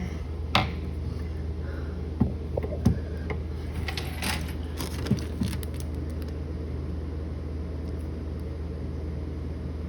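Small metallic clicks, taps and scrapes of a little screwdriver working a switch-plate screw that won't catch, scattered through the first half, over a steady low hum.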